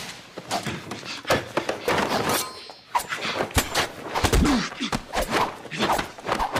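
Film fight-scene sound effects of a fast hand-to-hand exchange: a quick, irregular run of thuds and smacks from punches, blocks and blows landing.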